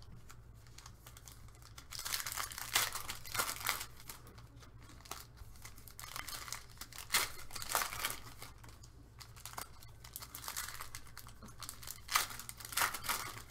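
Trading-card pack wrappers being torn open and crinkled by hand, in several separate bursts of crackling over a faint steady low hum.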